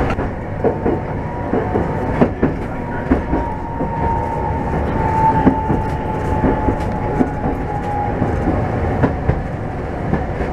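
Toden Arakawa Line streetcar running along its track, heard from inside the car: a steady rumble with irregular clicks and knocks from the wheels and track. A thin high whine holds for several seconds and sinks slightly in pitch before fading near the end.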